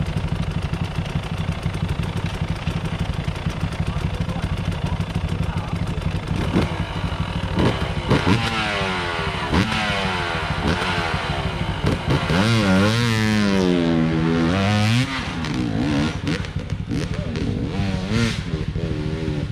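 Trail motorcycle engines: one runs steadily at idle throughout while another is revved up and down repeatedly from about six seconds in. The loudest stretch is a long run of revs about twelve to fifteen seconds in.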